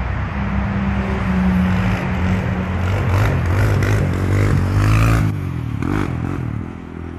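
Small quad ATV's engine running, with a steady note for the first few seconds, then revving up and down as it is ridden across the grass.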